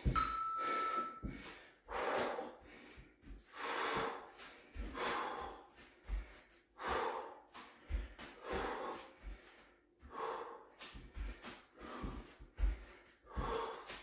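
A man breathing hard and fast from exertion, with a loud breath roughly every second, along with soft low thumps. A short electronic beep from the interval timer sounds just after the start.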